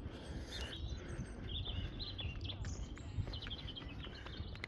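Small birds chirping in short repeated calls, over a steady low rumble.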